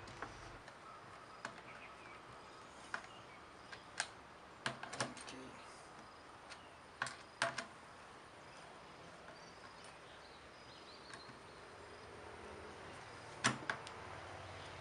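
Scattered light clicks and knocks of metal and plastic brush-cutter parts being handled and fitted together, the loop handle and aluminium shaft, with a cluster about four to five seconds in, two more near seven seconds, and the loudest knock near the end.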